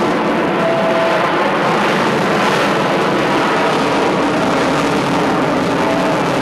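F-22 Raptor's twin Pratt & Whitney F119 turbofan engines: loud, steady jet noise as the fighter flies overhead in a nose-up climb.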